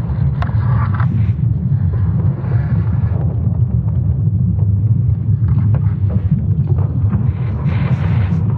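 Sonified recording of Earth's magnetic field: a deep, steady rumble with faint crackling above it.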